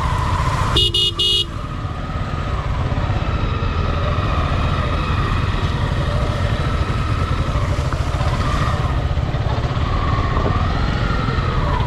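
Motorcycle engine running steadily at low speed, with rumbling road noise. About a second in, a vehicle horn gives three quick toots.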